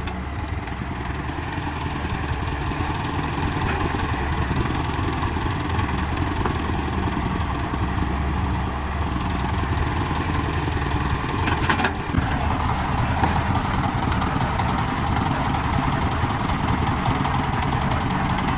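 Diesel engine of the site machinery running steadily, with a couple of short clicks about twelve and thirteen seconds in.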